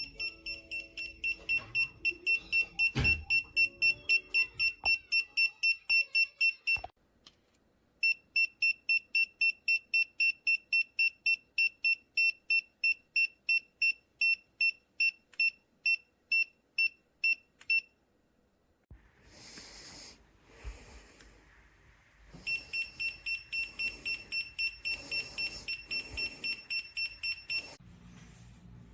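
Kiprim GD01 gas leak detector's audible alarm beeping fast and evenly at one high pitch, about four beeps a second, the sign that it is sensing combustible gas. It stops about 7 s in, resumes about a second later, stops again near 18 s and starts again around 22 s.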